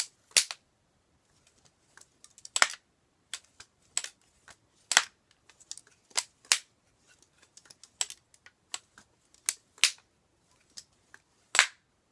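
Lego-brick balisong being opened and flipped by hand: its plastic handles swing on Lego hinges and clack against each other and the blade in sharp, irregular clicks, a dozen or so louder ones among fainter ticks.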